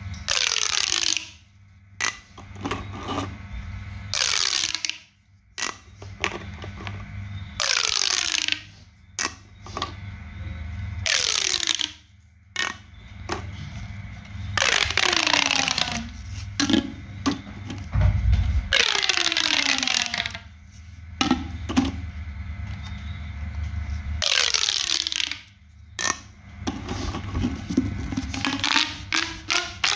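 Hands working craft materials while making a pop toy: a series of drawn-out scraping strokes, each sliding down in pitch, about every three to four seconds, with sharp clicks and taps in between.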